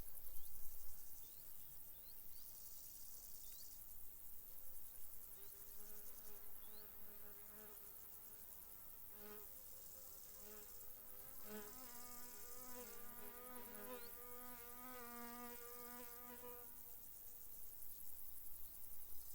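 A flying insect buzzing close by, its drone wavering in pitch as it moves. It comes in about five seconds in, is strongest in the middle, and drops away a few seconds before the end. Under it, crickets chirr high and faint in stretches that start and stop.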